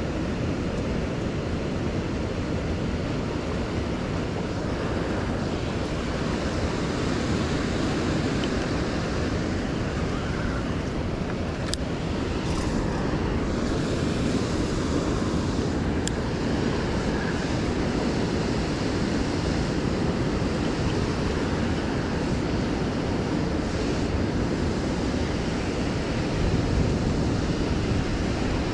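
Steady rushing roar of churning whitewater from the spillway discharge, an even, unbroken wash of noise. Two faint clicks sound about halfway through.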